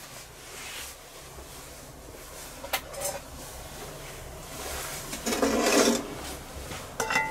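Metal grill tongs handling charcoal briquettes: two sharp clicks, then a scraping rattle of briquettes lasting under a second, the loudest part, and more clicks near the end, as coals are picked up to go on top of a cast-iron Dutch oven's lid.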